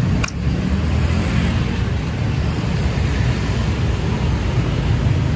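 Steady road traffic noise on a busy city street: a continuous low rumble of passing vehicles, with a brief click about a quarter second in.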